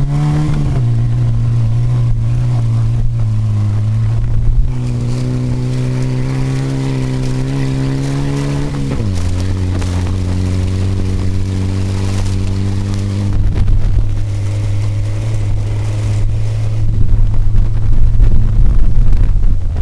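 Ford Fiesta crosscar engine revving up and then running hard at a steady pitch under load. About nine seconds in, the pitch drops and holds lower, and from about fourteen seconds in, loud rough rumbling and knocking from the car running over rough ground grows over the engine.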